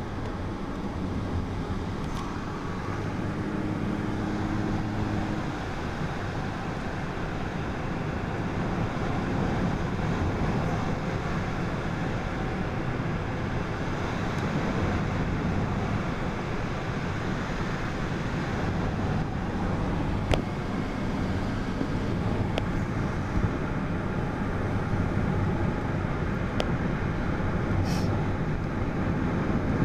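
Steady road and engine noise heard from inside a moving car's cabin, with a brief low hum a few seconds in and a few faint clicks in the second half.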